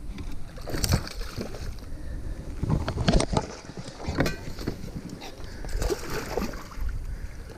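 Wind rumbling on the microphone while water sloshes and slaps against a kayak, with several sharp knocks and splashes in the middle of the stretch.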